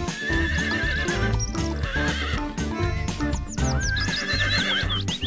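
Horse whinny sound effect, twice: a quavering call in the first second or so and a longer one from about three seconds in, over background music with a steady beat.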